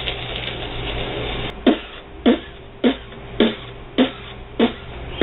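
A man imitating an angry cat with his mouth: a long breathy hiss, then a run of short, sharp, percussive mouth sounds, nearly two a second, as he mimes clawing.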